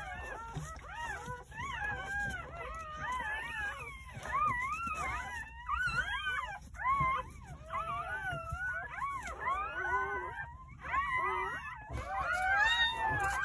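Newborn Jindo puppies crying: several high, wavering squeals overlapping one another, with short breaks between them.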